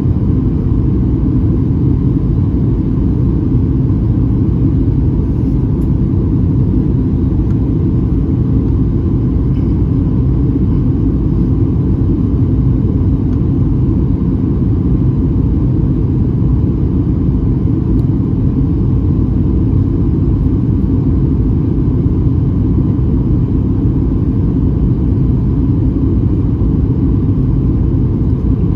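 Steady cabin noise inside a Boeing 737-900ER in descent: a deep, even rumble of the CFM56-7B engines and rushing air, with a faint steady whine above it.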